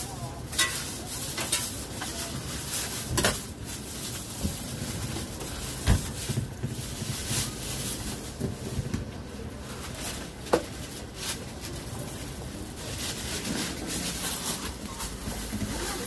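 Hands pressing and patting oiled msemen dough on a stainless steel worktop, with a handful of sharp knocks and taps spread through, over a steady background hiss.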